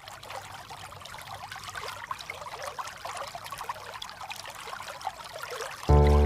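River water flowing and gurgling, a steady rush with many small bubbling splashes. Near the end, loud music cuts in suddenly over it.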